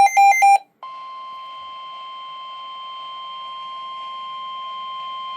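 NOAA Weather Radio emergency alert signalling a severe thunderstorm warning. A loud burst of rapidly switching electronic data tones, the end of the EAS digital header, stops within the first second. After a brief gap, the steady 1050 Hz weather alert tone sounds as one long unbroken tone.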